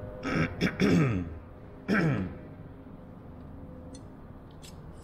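A man clearing his throat: two short bursts, each falling in pitch, the second about a second after the first.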